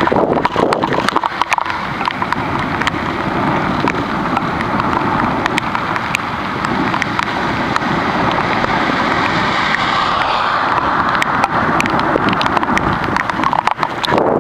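Steady rush of wind and heavy rain on the microphone of a camera carried by a cyclist riding in a downpour, with many sharp little clicks throughout.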